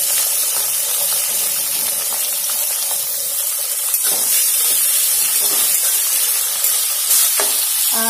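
Sliced red onions sizzling in hot oil in a metal wok, with a spatula stirring and scraping against the pan now and then.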